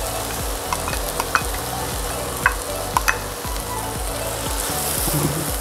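Chicken pieces sizzling in hot oil in a stainless steel frying pan while a spoon stirs them, with a few sharp clicks in the first half.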